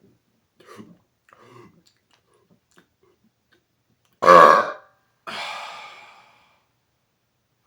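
A man's deliberate burp: one short, loud, pitched belch about four seconds in, followed by a quieter, breathy tail that fades over about a second. A few faint small mouth sounds come before it.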